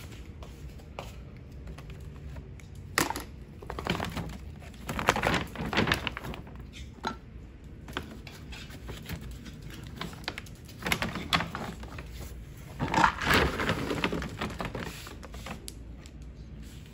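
A plastic dog-food bag being unclipped, opened and rustled, and a plastic scoop digging into the dry kibble, in several short bursts of crinkling and rattling.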